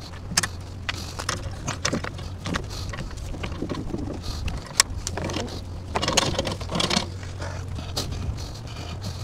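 Irregular metallic clicks and rattles, with a denser stretch about six seconds in, as a small boat with an outboard motor is eased down a launch ramp into the water. A steady low hum runs underneath.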